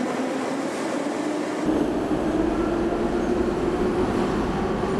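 Metro train running: a steady rushing noise with a steady hum, joined by a deep rumble that starts abruptly about a second and a half in.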